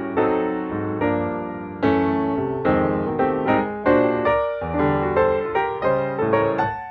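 Piano music, notes struck in a steady flowing rhythm with each one fading after it is struck.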